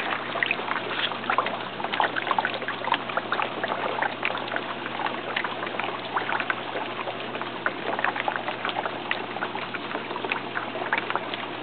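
Water trickling and splashing in an aquaponics fish tank, a steady wash dotted with many small sharp splashes.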